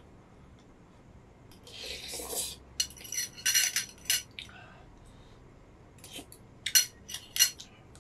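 A metal spoon clinking and scraping against a glass bowl in two quick clusters of clinks. A short slurp of spicy noodles comes about two seconds in.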